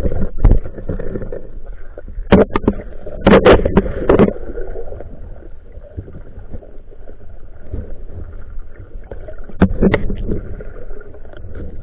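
Muffled water sloshing and churning around a camera held underwater, broken by a few clusters of sudden loud thumps.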